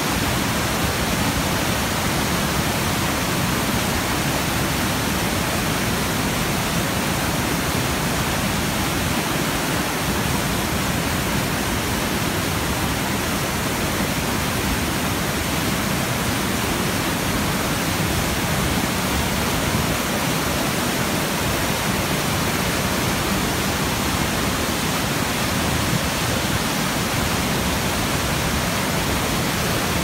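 Running water of the Mississippi River: a steady, dense rush of water noise that does not change.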